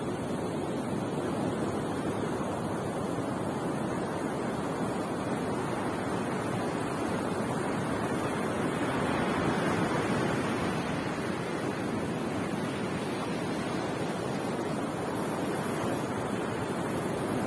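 Ocean surf breaking on a beach: a steady wash of waves that swells a little about halfway through.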